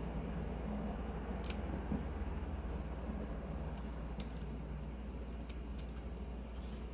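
A few scattered, faint clicks of computer keyboard keys under a cockatiel's feet as it walks across the keyboard, over a steady low hum.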